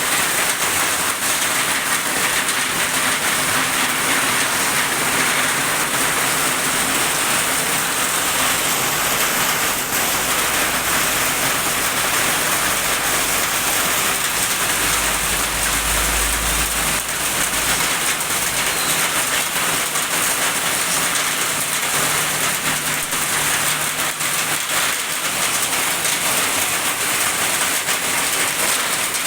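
Heavy rain pouring steadily, a dense even hiss of rain hitting surfaces. Partway through, a low rumble swells and fades.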